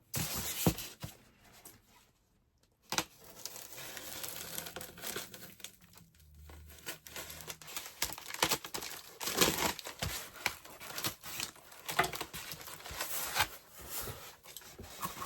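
Packaging being handled as a figure is pulled from its box: irregular crinkling and rustling with tearing sounds, broken by a short pause about two seconds in.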